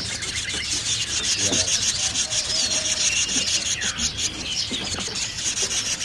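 Ashy drongo nestlings begging: a constant high, raspy, hissing chatter with a few clearer chirps mixed in.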